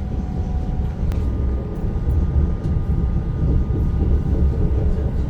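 Train running along the line, heard from inside the carriage: a steady low rumble with a faint thin whine above it and a single click about a second in.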